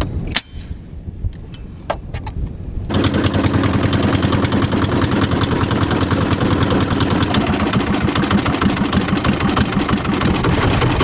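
A small boat engine starts about three seconds in and runs steadily with a fast, even chug. Before it, wind noise and a few sharp clicks.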